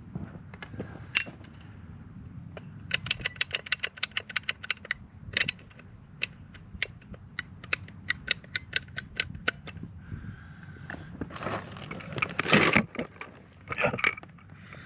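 Hand tools and pipe fittings being worked during a water-pipe repair: a quick even run of sharp clicks, then slower single clicks, then a rustle of handling near the end.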